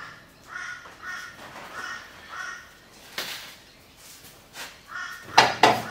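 A crow cawing in a string of short calls, about two a second. Sharp metal clanks from the wrench and control arm in the bench vise break in about three seconds in, and louder twice near the end.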